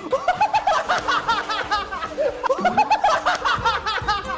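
Several young men laughing hard together in rapid, high-pitched bursts of laughter.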